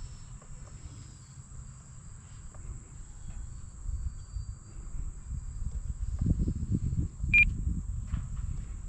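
Wind buffeting the microphone, a low rumble that grows heavier past the middle, with one short high beep near the end.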